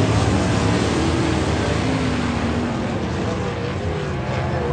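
Winged sprint cars' V8 engines racing hard around a dirt oval, a loud steady pack noise with revs rising and falling, easing slightly near the end as the cars move away.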